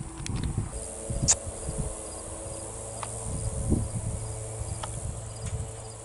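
Insects chirping steadily, with a few faint clicks.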